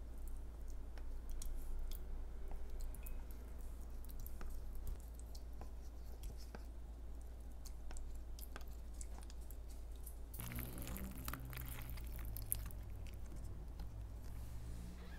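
Someone chewing and biting food close to the microphone: scattered small crunchy clicks, with a denser, louder noisy stretch about ten seconds in, over a steady low hum.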